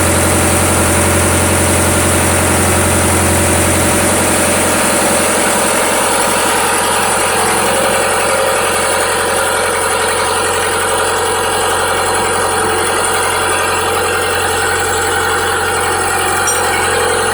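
A barge's diesel generator engine runs steadily. About four seconds in, its deep low hum weakens while the rest of the sound carries on.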